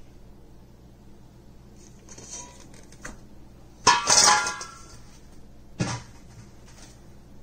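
Stainless steel stand-mixer bowl clanking and ringing briefly about four seconds in as it is knocked. Lighter clatter comes before it and a duller knock about two seconds later.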